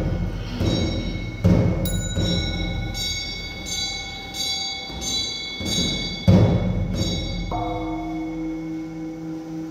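Buddhist ritual percussion struck in a slow series of about a dozen strokes: deep drum-like thuds mixed with ringing metal bell tones. Near the end a bowl bell is struck once and rings on with a steady tone.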